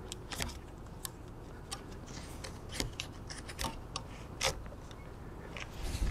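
Plastic ratchet strap on a Yakima RidgeBack bike rack clicking through its buckle as it is pulled tight around a bicycle frame: a string of irregular sharp clicks.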